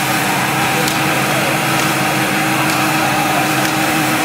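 Modified drift car engine with turbo or supercharger piping, idling steadily at an even pitch.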